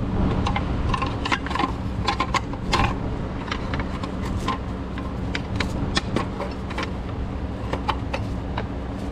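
Thin sheet-metal exhaust manifold heat shield clinking and rattling against the manifold as it is fitted into place by hand, with a cluster of sharp metallic taps in the first few seconds and scattered clinks after. A steady low hum runs underneath.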